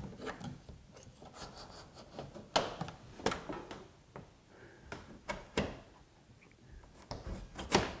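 Plastic trim tool working along a 2009 Honda Civic's plastic cowl panel: faint scraping and rubbing of plastic on plastic, with a handful of sharp clicks as the push-in retaining clips pop loose. The loudest click comes near the end.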